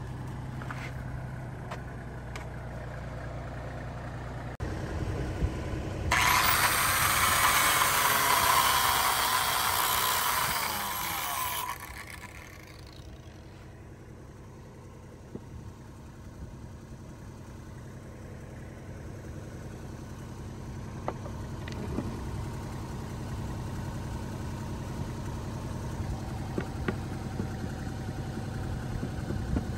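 Kubota engine running steadily, the power supply for the cable-stripping jig. About six seconds in, a loud, harsh grinding hiss cuts in for about six seconds and stops abruptly.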